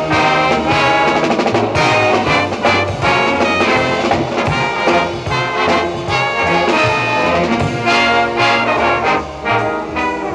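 High school band music from a 1965 band recording, the full band playing with a steady beat; it thins out and drops a little in level near the end.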